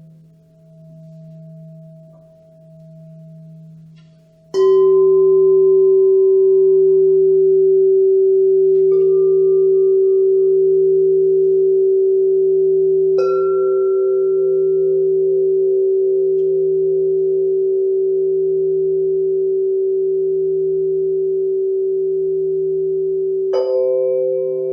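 Singing bowls: a low tone wavers slowly, then about four seconds in a bowl is struck and rings out loud and long. Three more strikes follow, each adding a higher note that rings together with the first.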